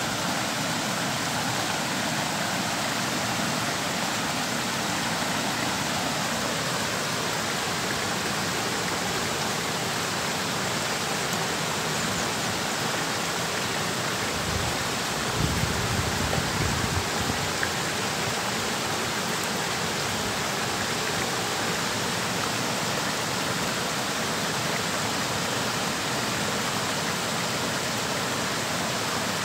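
Water of a small concrete canal spilling over a low weir, a steady rushing. A brief low rumble comes in about halfway through.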